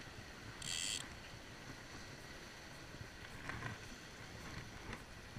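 Wind buffeting the microphone over sea washing against rocks: a steady low rumble and hiss, with a short sharp hiss about a second in.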